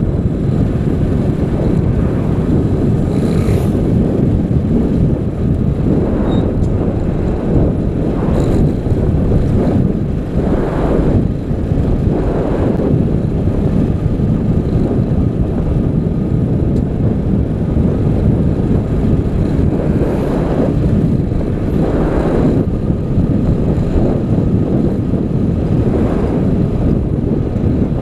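Steady wind rush on the microphone and running noise of a motorcycle riding at speed, with a few brief louder gusts.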